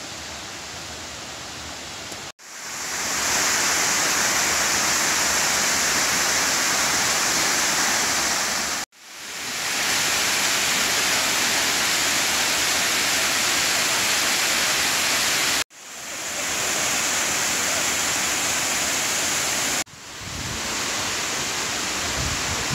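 A waterfall cascading over stepped rock ledges, a steady loud rush of falling water. It cuts out abruptly four times and each time swells back in.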